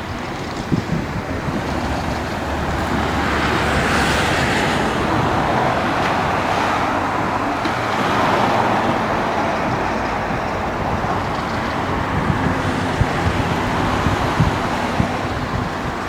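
Sea waves washing on the shore, swelling about four seconds in and again about eight seconds in, over a constant low rumble of wind on the microphone.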